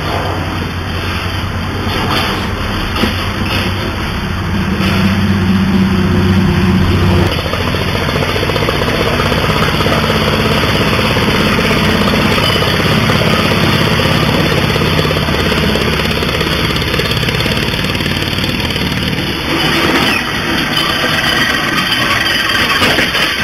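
Homemade three-cylinder compressed-air engine running steadily as it drives a lawnmower vehicle pulling a loaded trailer, with an engine noise like a tractor's. It is a little louder a few seconds in and eases briefly near the end.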